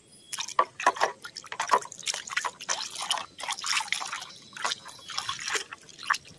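A hand splashing and swishing in a plastic tub of soapy water: a quick, irregular run of slaps and splashes with dripping, starting about a third of a second in.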